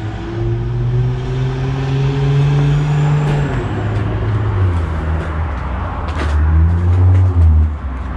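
A motor vehicle's engine running, its low hum rising slowly in pitch, then dropping about three and a half seconds in and carrying on at a lower note.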